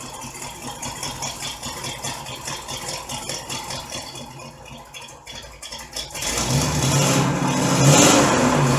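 1964 Chevrolet Impala's engine running quietly with some rattling, then revved about six seconds in, after which it runs louder.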